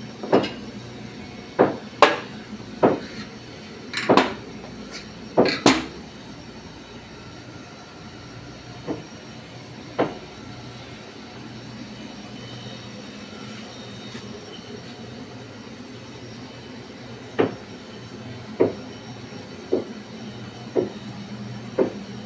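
Cast-iron gas burner parts clanking and knocking against a stainless steel range as they are handled and set down: a quick run of sharp knocks in the first six seconds, a few scattered ones in the middle, and another run near the end. A steady low hum runs underneath.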